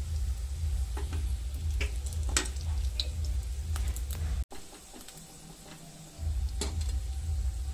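Hilsa roe frying in hot oil in a nonstick kadai, with the wooden spatula scraping and tapping on the pan as the fried pieces are lifted out, over a steady low hum. The hum drops out for over a second about halfway through, then returns.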